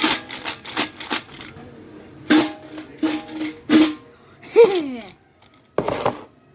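An object being tapped and knocked by hand: a run of sharp knocks, several with a brief ringing tone, then a squeak that falls in pitch and a short scraping rustle near the end.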